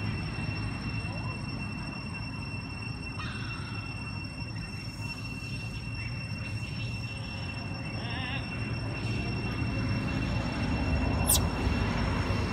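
Outdoor ambience: a steady low rumble with two constant high-pitched tones over it, a few brief faint squeaks, and one sharp short sound near the end.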